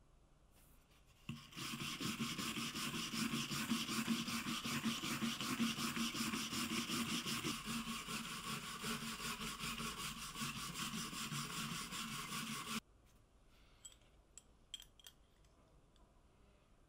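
Steel wire brush scrubbed rapidly back and forth along the grain of a bare wooden board, roughening the surface to texture it before waxing. The scrubbing starts about a second in and stops abruptly about three-quarters of the way through.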